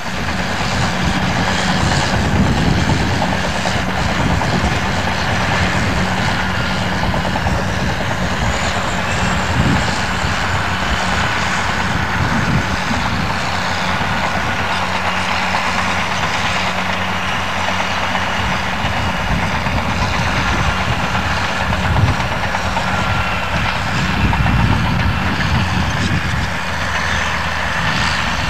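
Bulldozer's diesel engine running steadily while the machine works, with a thin whining note above the engine.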